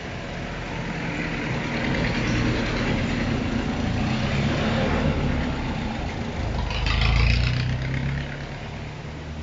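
A motor vehicle engine running, building up over the first couple of seconds, loudest about seven seconds in, then easing off.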